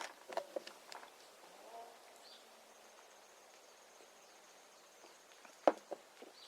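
Quiet outdoor ambience with an insect's thin, steady high-pitched note from a few seconds in, a few small clicks early on, and one sharp click near the end.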